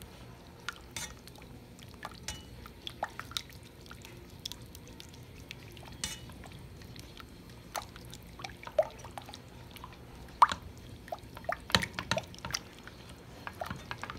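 Small silicone spatula stirring thick béchamel sauce in a saucepan: irregular wet clicks and squelches with light taps against the pan, getting busier in the second half with one sharper knock about ten seconds in.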